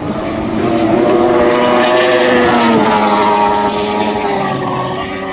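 OMC two-stroke V8 outboard racing engine running flat out on a speeding raceboat. Its high, steady engine note dips slightly in pitch about two seconds in as the boat goes by.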